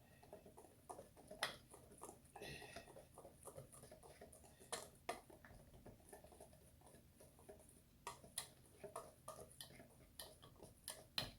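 Faint, irregular clicks and taps of a spoon against a mixing bowl while stirring a thick batter, with a brief squeak about two and a half seconds in.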